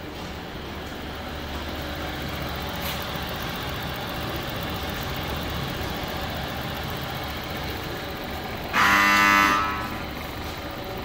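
Steady machine hum of the batch oven's electric fan motors running, with a loud, short horn-like beep lasting under a second about nine seconds in.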